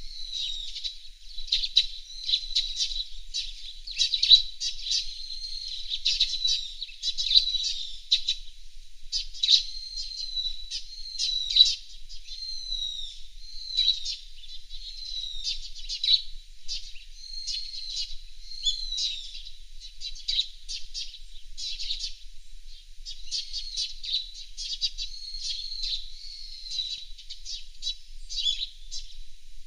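Small songbirds chirping and twittering continuously in quick, high-pitched notes and short trills.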